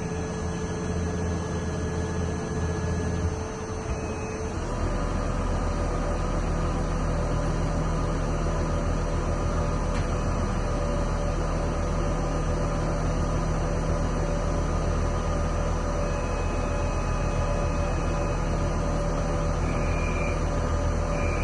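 Lathe running steadily: a motor hum with several held tones. About four and a half seconds in, the sound shifts as a deeper hum comes in, and it then runs on evenly.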